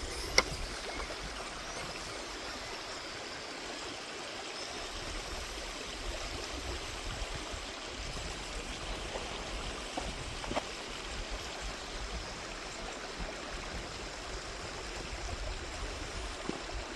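Creek water running steadily, an even rushing sound, with a few sharp clicks: one just after the start, one about ten seconds in and one near the end.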